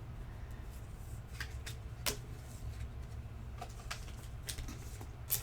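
Sports trading cards being handled at a table: a few sharp light clicks and snaps, spaced irregularly, over a steady low hum.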